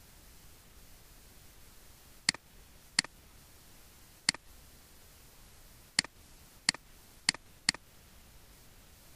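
Computer mouse clicking: seven sharp single clicks at irregular intervals, the last four close together.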